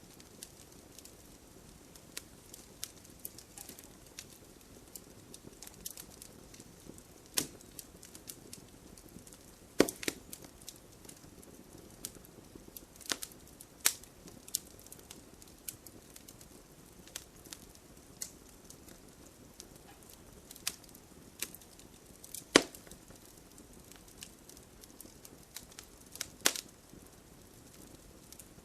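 Campfire of burning logs crackling: a low steady hiss under irregular sharp snaps and pops, a few much louder pops standing out.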